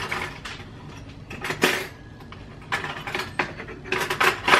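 Kitchen utensils and dishes clinking and clattering against each other in several short bursts, the busiest run about four seconds in.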